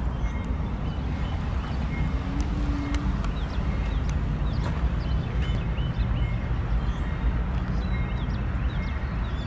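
Norfolk Southern diesel freight locomotives running as they pull a double-stack train past, a steady low engine rumble. Light clicks of wheels over the track and scattered short high chirps sit on top of it.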